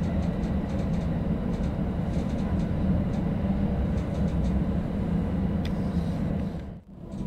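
Running noise heard inside a moving E233 series 3000 electric train car: a steady low rumble of wheels on the rails, with faint scattered ticks. It fades out briefly near the end.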